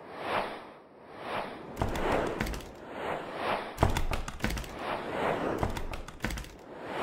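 Animated logo-intro sound effects: a string of whooshes, each swelling and fading in about a second, with sharp clicks and low thumps as the pieces land. The sharpest hit comes near the middle.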